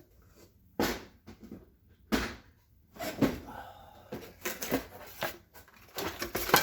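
Tools and parts being handled and set down on a workbench: a couple of sharp knocks, then irregular clattering and rummaging.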